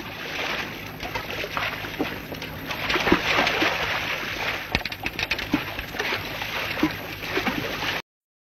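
Water splashing and sloshing as a hooked fish thrashes at the surface, over a steady outdoor hiss with a few faint voices. The sound cuts off suddenly near the end.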